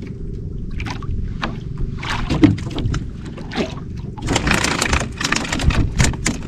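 Sea water lapping and slapping against the hull of a small outrigger boat, with scattered knocks. A louder rushing hiss lasts for about two seconds past the middle.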